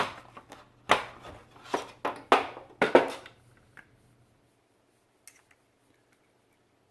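Handling noises from a small plastic refrigerator circulation fan: about six sharp clicks and knocks in the first four seconds, over a faint low hum that stops about four seconds in.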